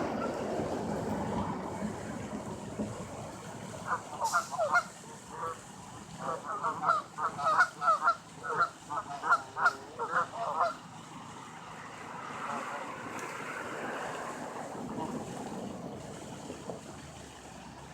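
Geese honking: a rapid run of many short calls lasting about seven seconds in the middle, over a steady background rush.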